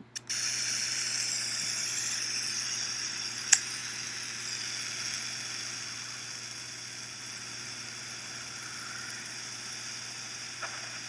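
Sonified induction-magnetometer data played back as a steady hiss, with one sharp click a few seconds in. It is the audio rendering of geomagnetic PC1 pulsations, with a faint background noise due to come up about halfway through the playback.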